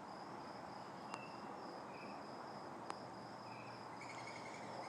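Crickets chirping in a steady, pulsing evening chorus, with two sharp clicks, about a second and about three seconds in.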